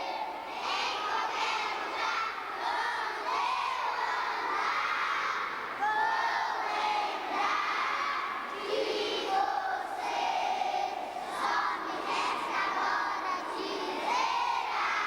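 A crowd of children's voices shouting and calling over one another.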